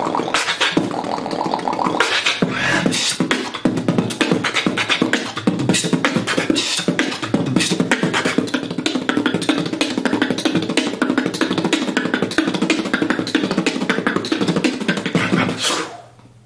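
A champion beatboxer performing a fast, dense beat with his mouth: rapid drum-like kicks, snares and hi-hat clicks strung into a rhythm. It stops abruptly near the end.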